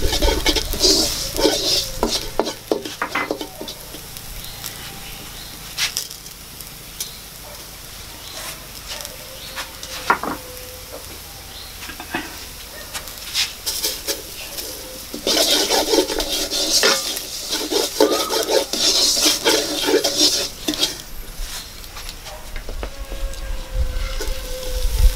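Wooden spatula stirring and scraping chilli flakes, green chillies and spices frying in a nonstick wok, with a low sizzle. The scraping comes in bursts, at the start and again about fifteen seconds in, with quieter sizzling between.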